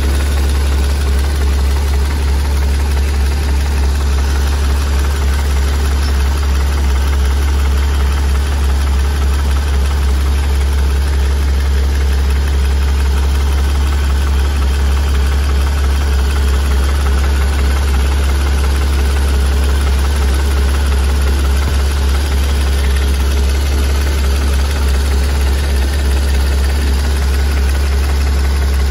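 Porsche 981 Cayman GT4's 3.8-litre flat-six idling steadily with a strong low hum, running on a newly fitted high-pressure fuel pump.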